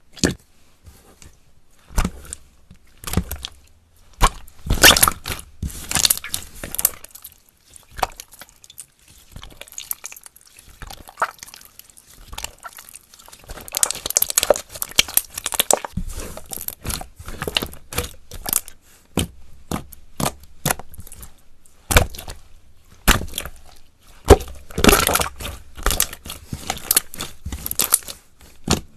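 Slime being mixed and squished by hand, giving irregular crackles and pops, in busier runs a few times.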